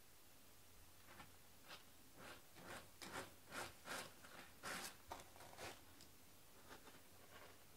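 A cat digging in cat litter in a plastic litter box: a run of soft, brushing scratch strokes, about three a second, loudest around the middle, thinning out near the end.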